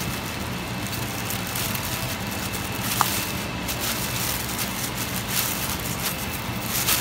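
A steady low mechanical hum with faint taps and rustling, and one brief high chirp about three seconds in.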